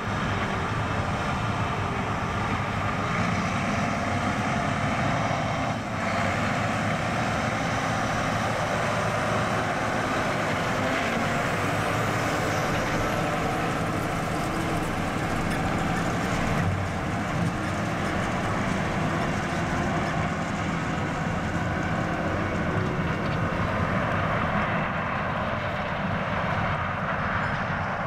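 Heavy diesel engines of large farm machinery running steadily: a John Deere 9RX four-track tractor pulling a grain cart across the harvested corn field, with a corn combine working in the field.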